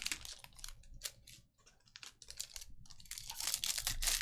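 Panini Select basketball trading cards being handled and flicked through: a run of quick clicks and snaps, growing into a denser rustling crackle about three seconds in.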